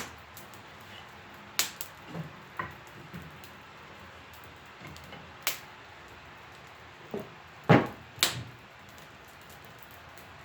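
Chunks of sawn wood knocking and clunking as they are handled: scattered single sharp knocks every second or two, with the two loudest clunks close together near the end.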